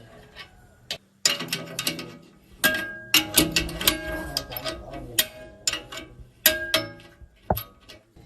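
Metal tools and engine parts clinking and knocking together in irregular strikes, several leaving a short metallic ring.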